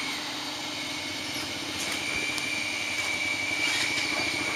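A motor running steadily with a lower hum and a constant thin high whine, growing a little louder about two seconds in: a motorbike engine idling or the fuel pump running.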